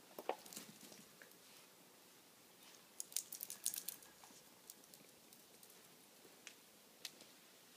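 Faint scattered clicking and tapping of a small dog's toenails on a hard floor, with a quick run of clicks about three seconds in and a few single ticks later.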